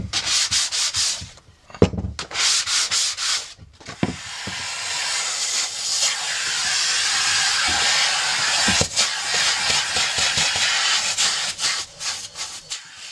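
Emery paper rubbed in quick back-and-forth strokes over a hardwood board, flatting dried sanding sealer between coats. About four seconds in a vacuum cleaner nozzle takes over with a steady hiss, sucking up the sealer dust from the board's surface, until near the end.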